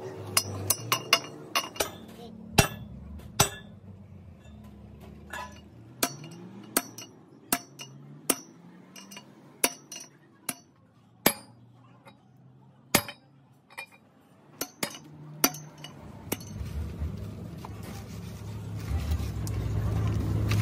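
Sharp, ringing metal-on-metal strikes at an irregular pace, a metal rod driving a bearing race in a truck wheel hub. The strikes stop a few seconds before the end, where a low hum rises.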